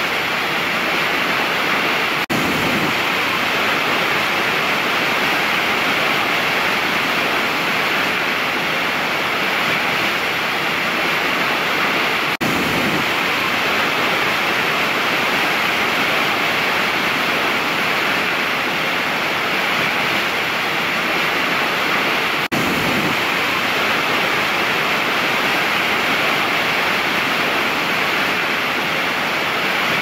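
Giant waterfall pouring over a cliff: a steady, dense rush of falling water. The level dips for a moment three times, about ten seconds apart.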